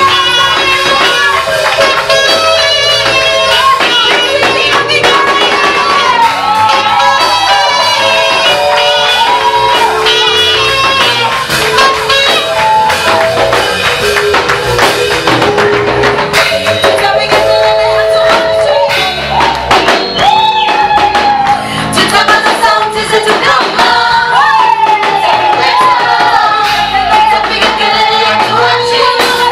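Swahili gospel song: singing voices over steady instrumental backing with a beat.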